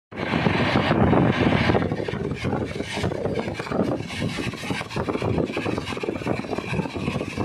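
Passenger train running at speed, heard from inside the coach: a steady rumble with irregular clatter from the wheels and track, louder for the first two seconds.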